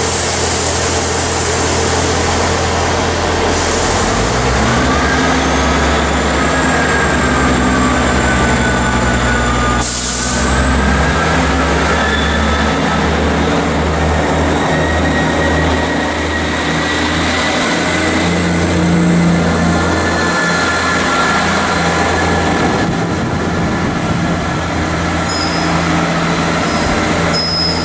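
Class 158 diesel multiple unit pulling away from the platform. Its underfloor diesel engines open up about four seconds in, and a thin whine climbs steadily in pitch as the train gathers speed and moves off. There is a brief hiss about ten seconds in.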